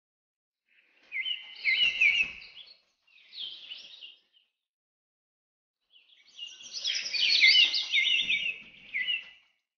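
Birds chirping in three bursts of quick, high chirps: one about a second in, a short one near three seconds, and a longer busy one from about six to nine seconds.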